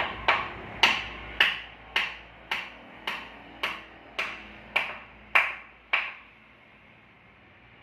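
Hammer striking in a steady rhythm, about two sharp blows a second with a short ring after each, eleven or so in all, stopping about six seconds in.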